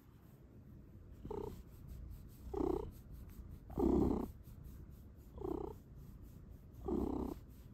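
Domestic cat purring right against the microphone, a steady low rumble that swells louder five times, about every one and a half seconds. These are the voiced 'mrrp' purrs it is named for.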